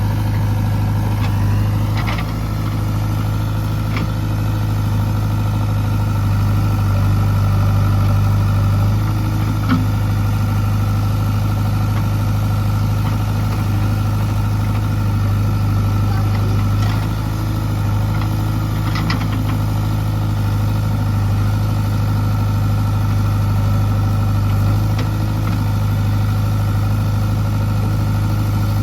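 Heavy diesel engine running steadily at constant speed, with a few short knocks over it.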